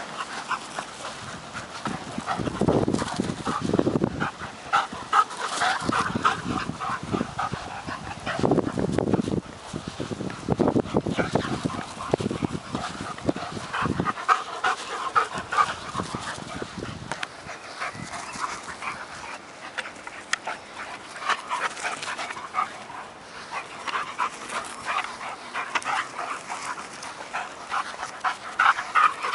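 Dogs panting rapidly and hard while running and chasing each other in play, a quick regular breathing rhythm that keeps up throughout.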